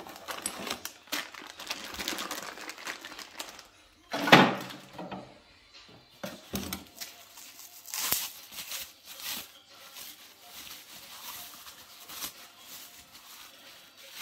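Bubble wrap crinkling and rustling in the hands as small parts are unwrapped, with a louder thump about four seconds in.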